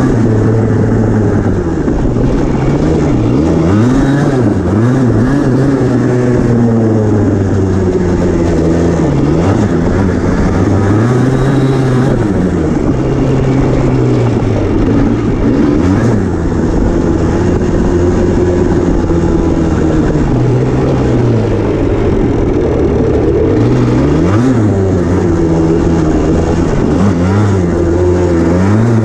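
Yamaha Blaster's single-cylinder two-stroke engine under way on a dirt trail, its pitch climbing and dropping over and over as the throttle opens and closes.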